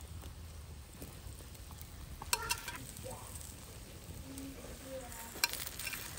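Hot oil sizzling as small breaded fish fry in a cast-iron skillet over a wood fire: a steady crackling hiss. Two sharp clicks come about two and five seconds in.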